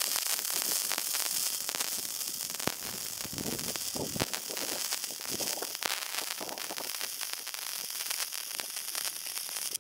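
Wire-feed welding arc laying a fillet weld between a steel plate and a square steel tube: a steady hiss dense with tiny crackles that cuts off suddenly at the end as the trigger is released.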